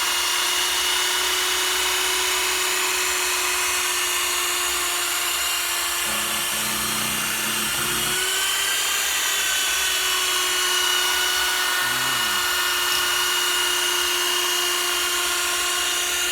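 Handheld power tool spinning a foam polishing pad at reduced speed to work polish into a sanded headlight lens, making a steady high whine.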